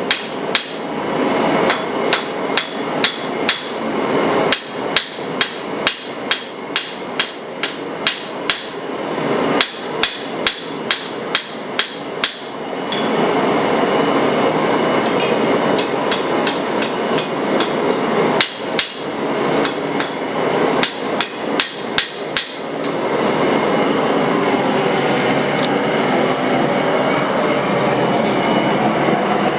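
Hammer blows forging a steel broadhead, in two runs of quick, even strikes about two a second, with a pause of several seconds between them. A steady rushing noise runs beneath the strikes and carries on alone after them.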